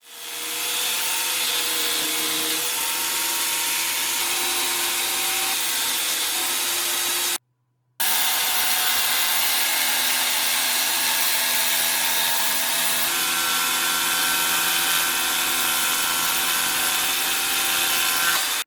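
Electric jigsaw running and cutting wood, a steady sawing noise with a shifting motor whine. It cuts out for about half a second about seven seconds in, then runs on.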